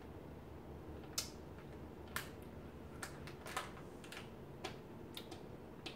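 Mouth sounds of someone chewing and swallowing a s'mores Oreo cookie: faint, sharp clicks at irregular spacing, about nine in all.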